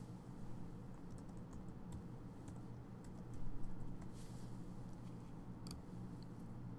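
Computer keyboard typing: a run of light key taps as a password is entered, then one sharper click about two-thirds of the way through. A faint steady low hum lies underneath.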